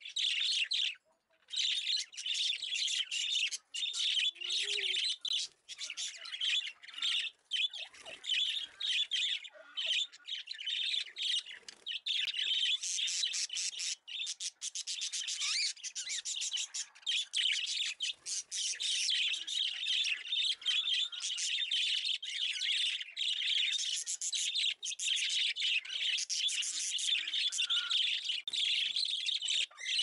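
Budgerigar chattering and warbling without a break, a busy stream of chirps with squawks mixed in and only short pauses.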